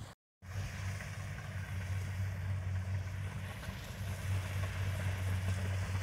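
Kubota rice combine harvesters running in the field, a steady low engine hum with a hiss above it. The sound cuts out completely for a moment just after the start.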